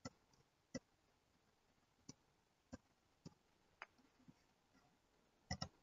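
Faint computer mouse clicks: single clicks spaced about half a second to a second apart, then two or three in quick succession near the end.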